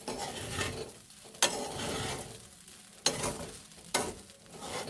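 Wachipa, rice with minced chicken, frying and being stirred and scraped in the cooking pot, sizzling. It comes as about four strokes, each starting sharply and fading over a second or so.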